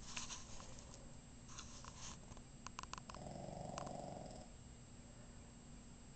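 Boston terrier snoring: one loud, fluttering snore about three seconds in, lasting about a second and a half, with a few soft clicks before it.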